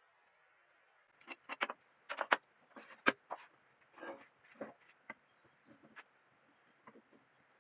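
About a dozen irregular light knocks and clicks: small wooden pieces being handled and set down on a work surface.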